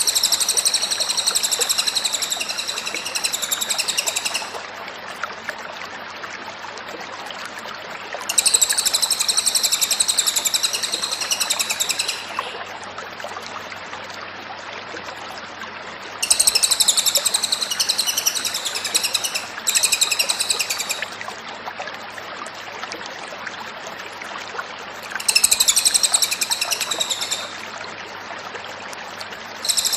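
A cililin songbird singing in repeated bursts of high, rapid chirping song, each lasting two to four seconds with pauses of about four seconds between them; one burst near the two-thirds mark breaks briefly in the middle. A faint steady hum and hiss sit under the song.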